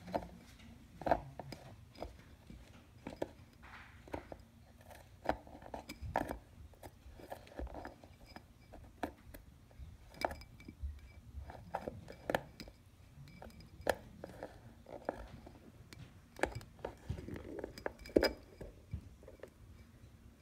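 A tortoise scrabbling and climbing against a ceramic water bowl and a plastic hide: irregular sharp clicks and knocks of claws and shell on the hard surfaces, a few of them louder, with scratching in the substrate between them.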